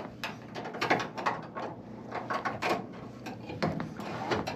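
Steel inner wire of a vernier mixture control cable being pushed by hand into its hollow casing, with irregular scraping and clicking.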